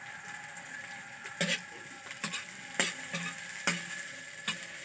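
Chopped onions sizzling in hot oil in a metal wok while a utensil stirs them, with several scrapes against the pan.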